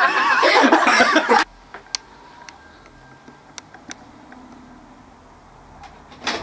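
Voices and laughter that cut off abruptly about a second and a half in, followed by quiet room tone with a few faint clicks.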